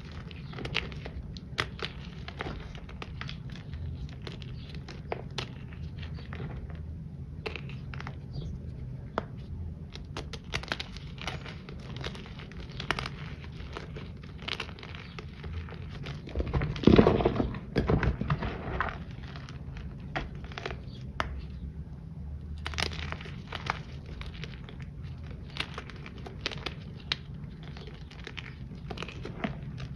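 Handmade reformed powder chunks crumbling and crunching as fingers squeeze them, a steady stream of crisp crackles. A louder, longer crunch comes a little past halfway. The chunks are from a different batch of powder and are a little crunchy.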